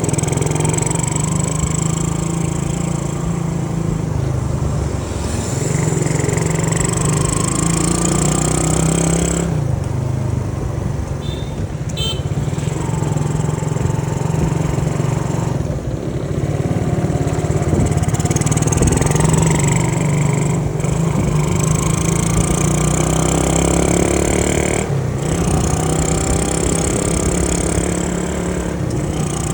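Honda C70 motorcycle's small single-cylinder four-stroke engine under way, its pitch climbing and then dropping back every four to six seconds as it pulls through the gears.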